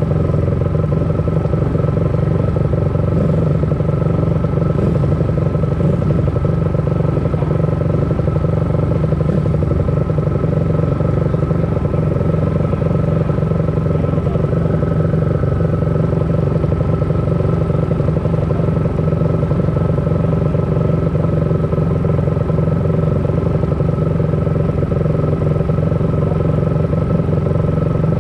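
Pit bike's single-cylinder four-stroke engine idling steadily on the start grid, with no revving.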